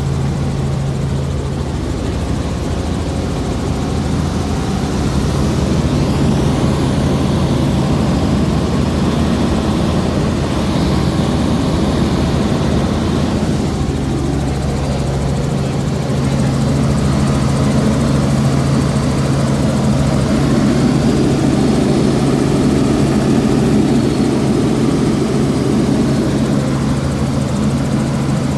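Tour helicopter running, a steady drone of engine and rotor with a constant low hum.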